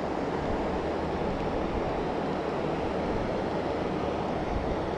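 Steady rush of flowing river water, with a low rumble of wind on the microphone underneath.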